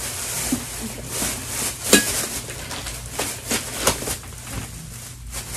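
Rustling with a few sharp clicks and knocks as haul items and their packaging are handled and set down.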